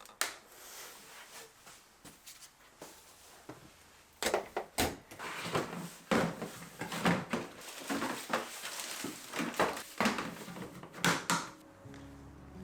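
Objects being handled in a small room: scattered knocks, clicks and rustles, sparse at first and busier in the second half. Soft music begins near the end.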